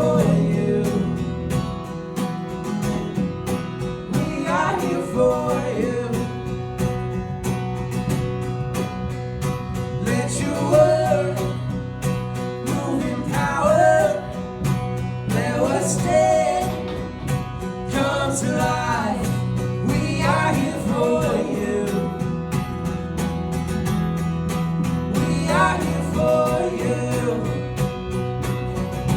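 Worship band playing a song: singing over guitar, with steady held low notes underneath.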